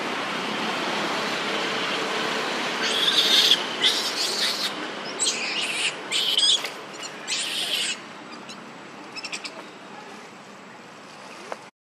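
A run of five or six short, high-pitched animal calls, each under a second, between about three and eight seconds in, over a steady hiss.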